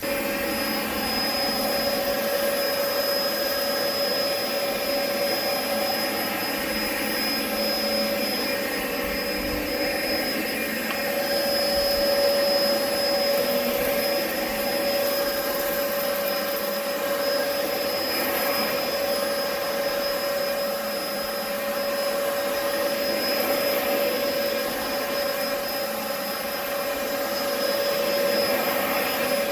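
Upright vacuum cleaner with a lift-off canister switched on and running steadily, its motor giving a constant whine over a rush of air.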